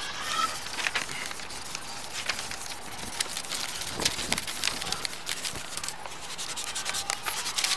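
A drawing tool scratching and tapping on paper: irregular scrapes and clicks over a steady hiss, with a denser run of quick clicks near the end.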